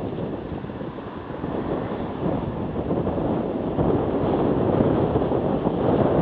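Steady wind noise buffeting the microphone of a cyclist's camera while riding, a little louder from about four seconds in.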